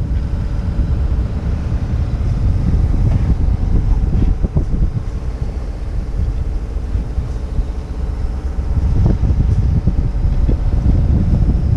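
Wind buffeting the microphone aboard a sailing yacht at sea, a loud, uneven low rumble.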